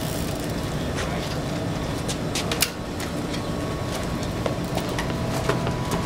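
Sharp clicks and clacks of a road bike's rear wheel being secured and the bike set moving, one louder clack about two and a half seconds in, over a steady low mechanical hum.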